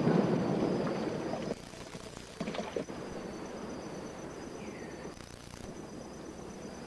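A deep, loud rumbling roar of a volcanic eruption cuts off abruptly about one and a half seconds in. A quieter outdoor ambience follows, with a brief burst of noise near the middle.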